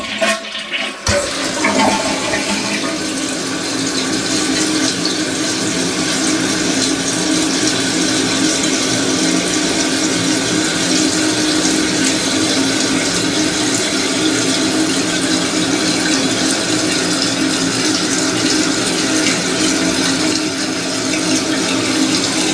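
Toilet flushing: water rushes in suddenly about a second in and then runs steadily as the tank refills through its freshly adjusted fill valve, without the hissing or abnormal noise of a valve that fails to close.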